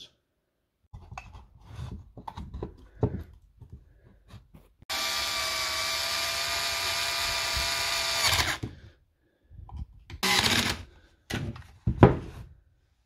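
Cordless screwdriver running steadily for about three and a half seconds as it drives the screws that close the battery's plastic case. Small handling clicks and knocks come before and after it, with a sharp knock near the end.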